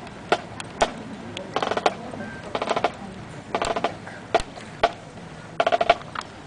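Marching snare drums beating a slow cadence: short rolls about once a second, with sharp single clicks between them.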